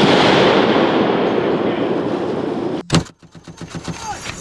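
Sustained burst of automatic fire from an M250 6.8 mm machine gun. It cuts off just under three seconds in, followed by one sharp crack.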